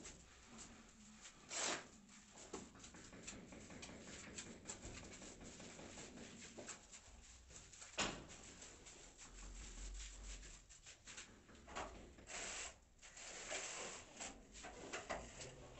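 Faint scraping and rubbing of hand tools working cement mortar on a floor. Scattered light clicks run throughout, with two sharper knocks, about two and eight seconds in.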